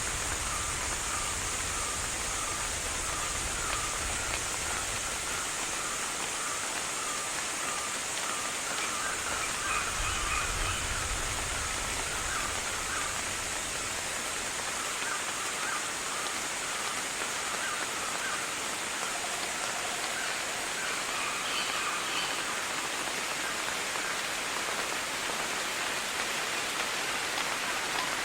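Rainforest ambience: a steady hiss of rain with a high, even band of sound above it. Through this a bird calls in quick repeated chirps through the first half, with a few higher calls later. A low rumble comes at the start and again about ten seconds in.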